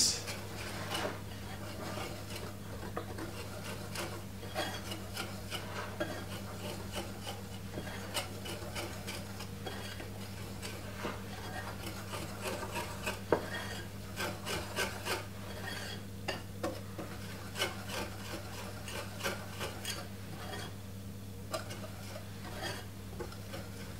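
Wire balloon whisk stirring dry flour, baking powder and cocoa powder in a glass bowl: a continuous scratchy rubbing, with frequent light ticks of the wires against the glass, over a steady low hum.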